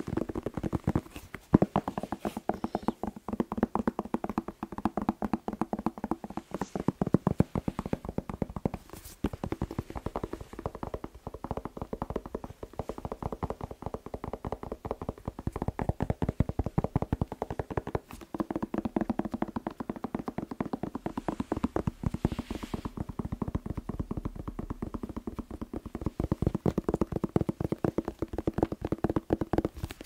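Fast fingertip tapping on a whole red bell pepper held against the microphone: a dense, continuous patter of many taps a second, with a few sharper knocks standing out.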